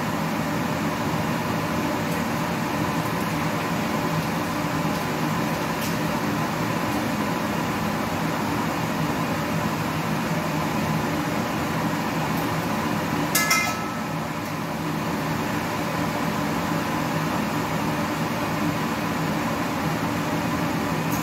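Steady mechanical hum of a fan or running kitchen appliance, with a low drone. A brief clink about thirteen seconds in.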